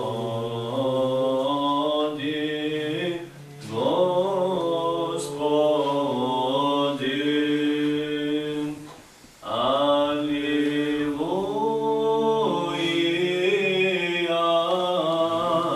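Orthodox liturgical chant sung a cappella in long, slowly moving held phrases, with two short pauses for breath, about 3.5 and 9 seconds in.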